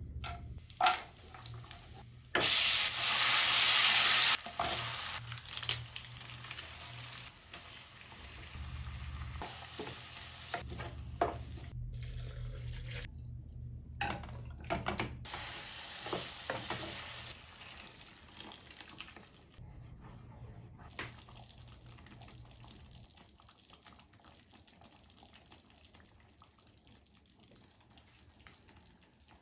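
Food frying and sizzling in a hot pan while a spoon stirs it, heard in several short cuts. The sizzle is loudest and most even for about two seconds near the start, and grows quieter toward the end.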